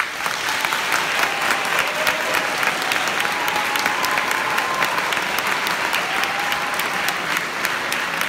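Audience applause that breaks out suddenly as the choir's song ends and carries on steadily: a dense, loud patter of many hands clapping.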